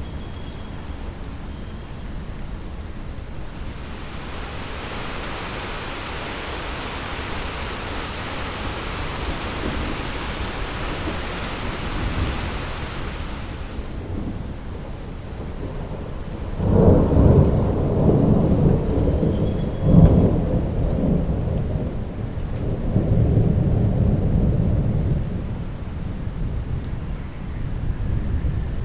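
Steady rain during a thunderstorm. The rain hiss swells about four seconds in and eases off about ten seconds later. Then a loud peal of thunder rolls in, with a sharp crack partway through, and rumbles on for several seconds before it dies down.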